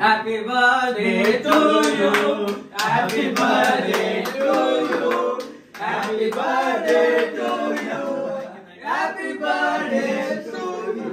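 Several voices singing together, broken by a few short pauses, with sharp claps.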